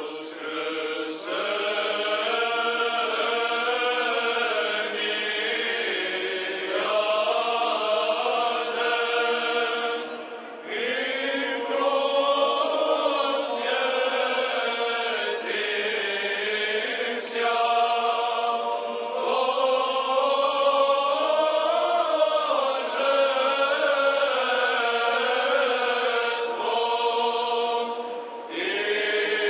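Choir chanting an Orthodox liturgical hymn in long sung phrases, with short breaths between them about ten seconds in and near the end.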